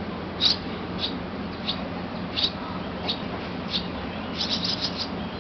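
Swallow nestlings chirping: short, high chirps about once or twice a second, with a quick run of several near the end, over a steady low hum.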